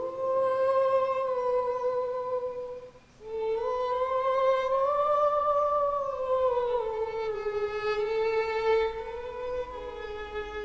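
Background film score: a slow solo violin melody of long held notes that bend gently in pitch, with a short break about three seconds in.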